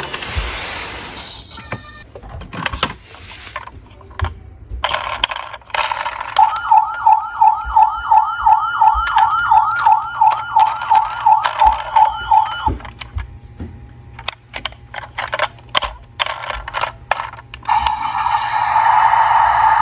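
A battery-powered toy ambulance's electronic siren yelps in a fast warble, about three cycles a second, for some six seconds in the middle, then cuts off. Plastic clicks and clatter from the toy vehicles being handled come before and after it.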